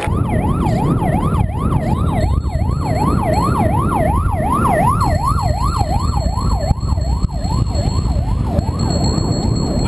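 Emergency vehicle siren in fast yelp mode, its pitch sweeping up and down about two to three times a second, loudest midway and fading toward the end.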